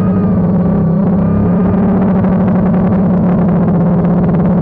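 DJI Phantom quadcopter's motors and propellers, heard from a GoPro on the airframe: a loud, steady buzzing drone whose pitch wavers a little near the start as the motors adjust speed.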